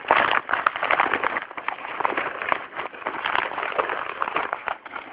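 Shipping parcel packaging being pulled and worked open by one hand: a dense, irregular run of crackling and rustling.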